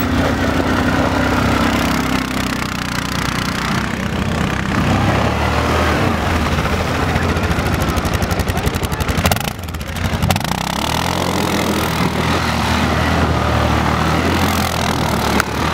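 Quad bike engine running and revving, its pitch rising and falling. The sound breaks off briefly about two-thirds of the way through, then the engine climbs and holds again.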